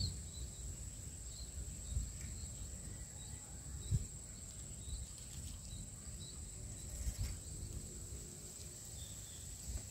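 Steady high-pitched insect drone, with scattered faint bird chirps and a few soft low thumps.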